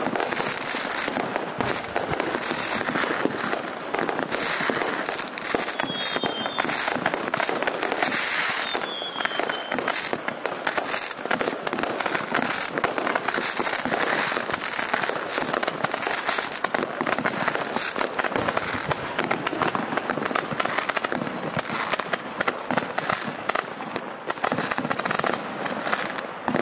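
Roman candle firework firing shot after shot, gold-tailed stars shooting upward, with a rapid, unbroken run of pops and crackling.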